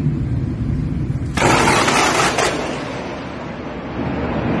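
Thunder: a low rumble, then a sharp thunderclap about a second and a half in that lasts about a second and fades back into rumbling.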